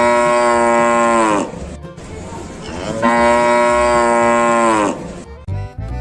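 A cow mooing twice, each moo a long, steady call of nearly two seconds that drops in pitch as it ends. Near the end short knocks and music start.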